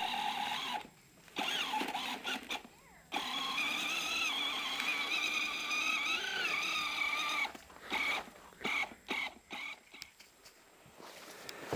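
Electric motor of a child's ride-on toy quad whining as it drives through snow, its pitch wavering and dipping with the load. It is broken by a couple of short gaps, and near the end it gives way to a few softer, scattered sounds.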